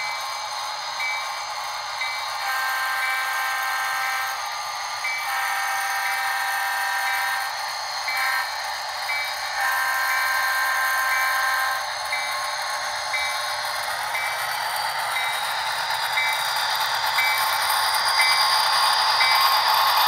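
Sound-equipped HO scale Bachmann SD40-2 model diesel sounding its horn from its small onboard speaker in the grade-crossing pattern: two long blasts, a short one and a long one, over the decoder's running engine sound. Over the last several seconds the rattle of the freight cars' wheels on the track grows louder as the train passes close by.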